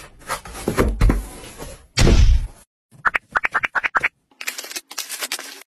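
Handling of a plastic foldable drone and its foam case: knocks and a heavy thump about two seconds in, then a quick run of sharp clicks as the arms are swung open, followed by rustling.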